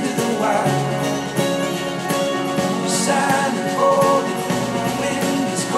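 A song with drums played back through a pair of JBL 306P MKII studio monitors and recorded by a microphone in the room.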